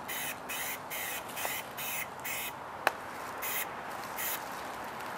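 Aerosol spray paint can spraying in short hissing bursts, about two a second, then two more spaced out near the end, as red paint is laid onto a taped helmet. A single sharp click comes about three seconds in.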